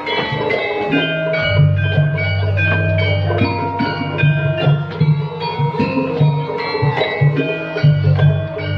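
Javanese gamelan accompaniment: bronze metallophones struck in quick succession, ringing bell-like tones over a low sustained tone that comes and goes.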